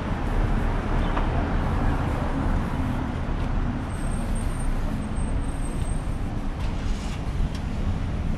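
Road traffic passing: a steady low rumble of car engines and tyres, with a thin high whine for a couple of seconds about halfway through.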